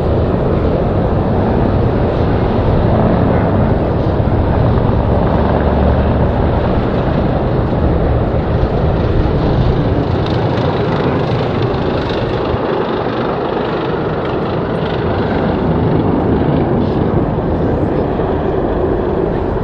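Jet engines of a British Airways Boeing 777 airliner running as it taxis: a loud, steady rumble. The deepest part of the rumble eases a little about two-thirds of the way through.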